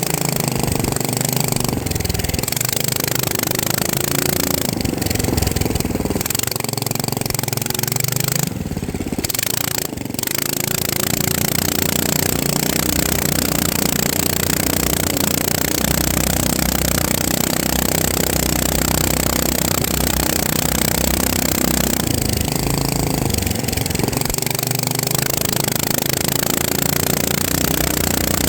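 Motors and propellers of an FPV quadcopter drone buzzing steadily, the pitch shifting with throttle, with two brief dips about nine and ten seconds in.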